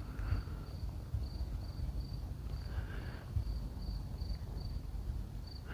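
Crickets chirping steadily, short high chirps at about three a second, over a low rumble.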